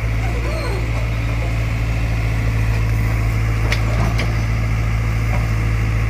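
JCB 3DX backhoe loader's diesel engine running steadily under hydraulic load as the backhoe boom swings a bucket of soil, with a few short knocks about halfway through.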